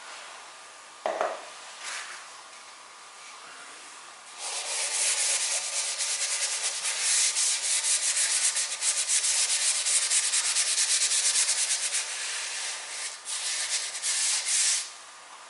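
Stiff bristle brush scrubbing wood stain onto bare wood in rapid back-and-forth strokes. The strokes start about four seconds in and stop just before the end, with a short pause near the end. A brief knock comes about a second in.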